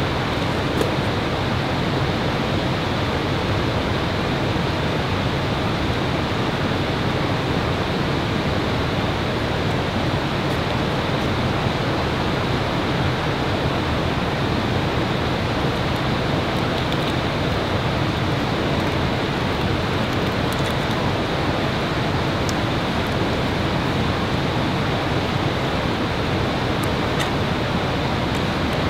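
A steady rushing noise, even in level throughout, with no tone or rhythm in it, that drops away suddenly at the end. A few faint ticks from handling come through it.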